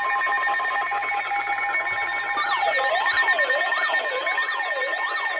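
Electronic weather-alert alarm tones: several steady beeping tones sound together. About two seconds in, a warbling tone joins them, sweeping up and down about one and a half times a second.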